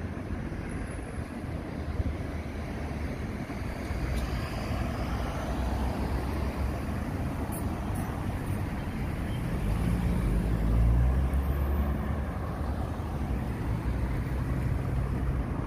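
Road traffic passing along a city street, a steady rush of cars and engines. One vehicle passes close with a low engine hum, loudest about eleven seconds in.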